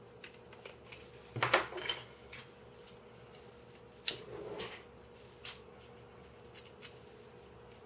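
3D-printed plastic puzzle pieces being handled and fitted: a cluster of sharp clicks about a second and a half in, then a knock with a brief rustle about four seconds in as the cube is set down on the wooden desk, and one more click a little later.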